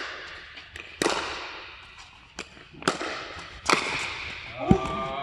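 Pickleball paddles striking a plastic pickleball in a fast rally: five sharp pops about a second apart, ringing with echo in a large indoor court hall.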